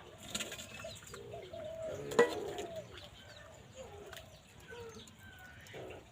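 Birds calling, a scatter of short cooing and chirping calls, with one sharp knock about two seconds in.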